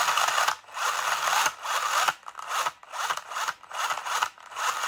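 An RC car's electric motor and gear drivetrain spinning with the wheels off the ground, a gritty whirr that surges and drops away about six times as the throttle comes and goes.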